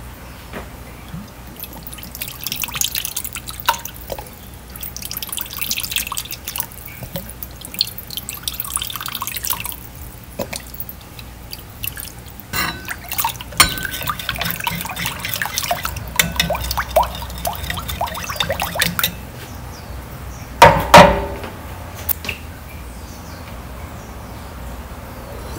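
Metal spoon stirring a watery dipping sauce in a ceramic bowl, with liquid sloshing and dripping and the spoon clicking against the bowl, while a thin stream of sauce is poured in. One louder ringing clink of spoon on bowl near the end.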